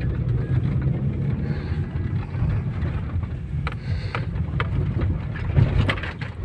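Cabin rumble of an Opel Zafira driving over a rough road, with several short knocks from the front suspension in the second half. The owner takes this for the front-right suspension knock, still there after new struts were fitted.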